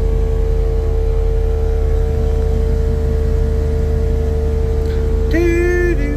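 Steady mechanical drone of the truck's onboard air compressor pumping up the air-horn tank, a constant hum with a low rumble underneath.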